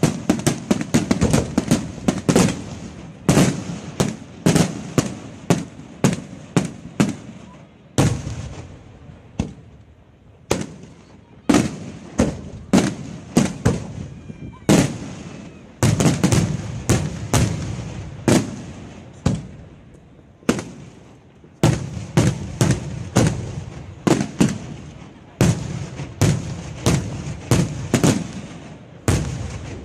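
Aerial firework shells bursting in rapid series of sharp bangs, each followed by a rolling echo. The bangs thin out for a few seconds about a third of the way in, then come thick and fast again.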